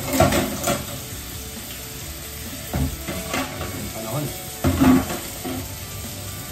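Kitchen tap running in a steady stream into a stainless-steel sink while hands are scrubbed under it, with a few louder splashes and knocks near the start, around the three-second mark and about five seconds in.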